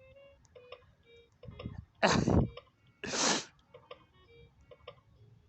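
VTech toy phone giving short electronic beeps and tone snippets as its buttons are pressed, with two loud rushing bursts of noise about two and three seconds in.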